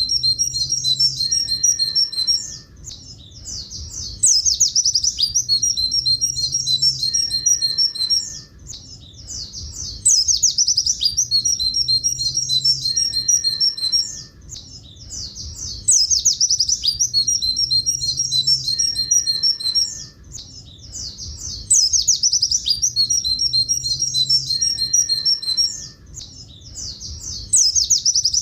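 Buxtoni white-eye (pleci buxtoni) singing rapid, high 'tulit tulit' twittering trills. The same phrase of about four seconds comes back about every six seconds, as in a looped training recording, over a faint steady low hum.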